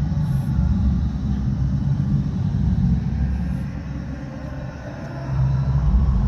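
Amplified party music from an outdoor sound system heard from afar, reaching the listener mostly as a heavy bass rumble. It eases off about four seconds in and comes back louder near the end.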